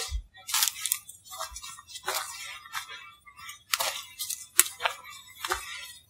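Footsteps crunching through dry leaf litter and twigs, short crackling steps about every half second to a second, unevenly spaced.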